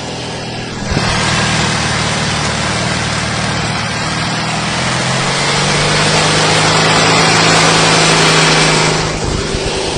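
Snowblower powered by a Citroën 2CV air-cooled flat-twin engine running under load, with a steady low engine note. About a second in, a loud rushing hiss joins it as the machine throws snow; the hiss eases briefly near the end.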